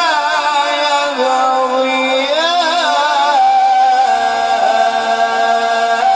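A male qari reciting the Quran in the melodic tajweed style, drawing out one syllable through wavering, ornamented turns that settle about halfway into a long held note.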